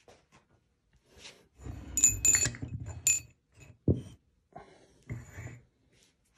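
Ball screw and its steel bearing-housing plate being handled: a run of metallic clinks with a short ringing about two seconds in, then two knocks a little over a second apart.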